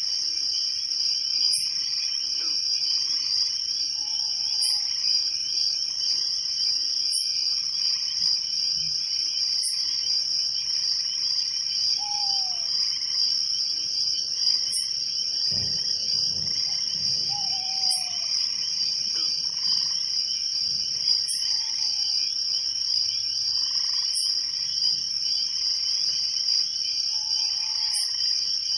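Night chorus of crickets trilling steadily, with a short high chirp repeating every two to three seconds and frogs giving short falling calls every few seconds. A brief low rumble comes about halfway through.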